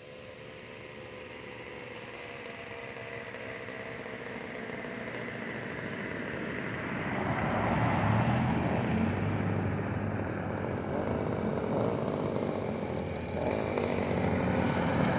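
A small engine drawing closer, growing steadily louder over about eight seconds, then running close by.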